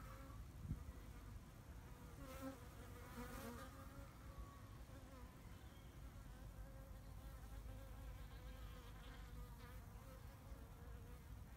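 Bees buzzing faintly, a wavering hum that comes and goes, over a low background rumble.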